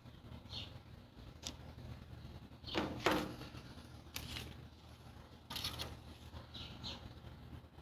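Handling noises of replacement grill parts and their packaging: a few short scrapes and knocks, the loudest about three seconds in.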